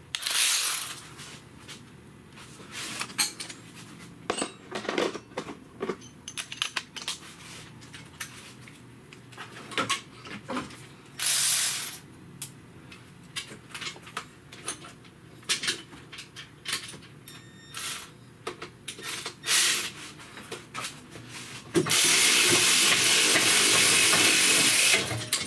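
Metal tools and parts clinking and clanking during work on an engine's mounts, with short bursts of hiss about a second in and about eleven seconds in, and a steady hiss lasting about three seconds near the end.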